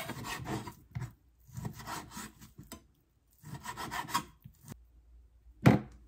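Knife dicing raw pork on a wooden cutting board: three runs of quick cutting strokes, each about a second long, with the blade working through the meat and tapping the board. Near the end comes a single louder knock.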